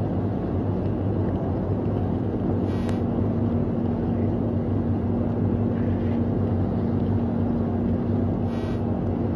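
Steady low rumble with a constant low hum and wind noise on the microphone. There is a brief crackle about three seconds in and a short hiss near the end.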